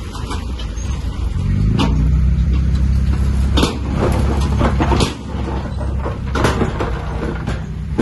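Diesel engine of heavy earthmoving machinery running steadily, with several sharp knocks at irregular intervals.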